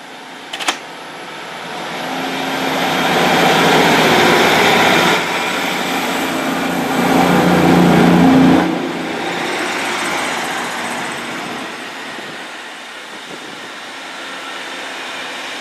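Arriva Trains Wales diesel multiple unit running close past the platform under power, engine drone and wheel noise together. The noise builds over a couple of seconds, stays loud, drops off sharply about eight and a half seconds in, then fades.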